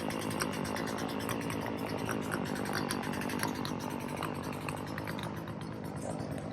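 Small gasoline engine of a saw running steadily, with many small sharp clicks over it.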